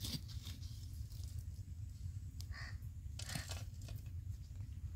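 Metal ladle scraping and knocking against charcoal as burning embers are scooped from the wood fire and laid on the lid of the dum biryani pot, in a few short scrapes and clinks.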